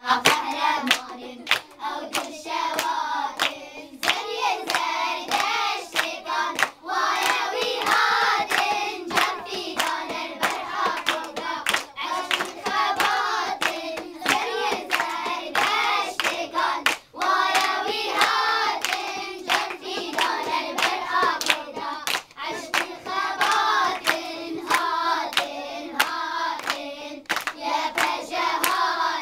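A group of children singing a song together in unison, clapping their hands along in a steady beat of about two claps a second.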